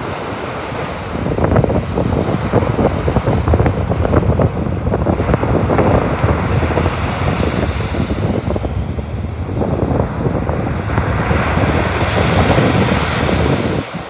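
Baltic Sea surf breaking and washing up a sandy beach, with heavy wind buffeting the microphone. A wave's hiss swells near the end.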